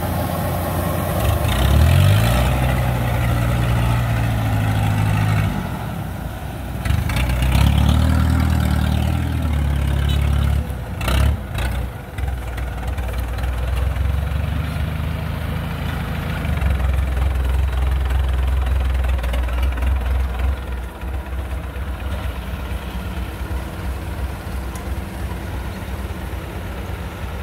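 Kubota DC-93 combine harvester's diesel engine running under load, its pitch rising and falling several times as it speeds up and settles back. A few sharp knocks come near the middle.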